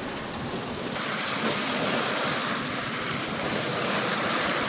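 Steady rush of wind and breaking sea water around a sailboat sailing close-hauled in rough conditions, growing louder about a second in.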